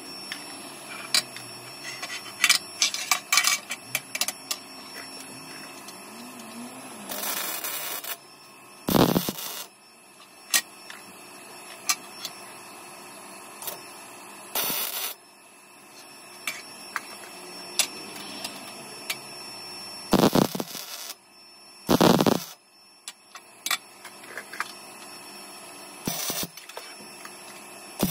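Electric welding on a headlight bar: six short bursts of arc noise, each half a second to a second long. Between them come clinks and taps of metal and tools.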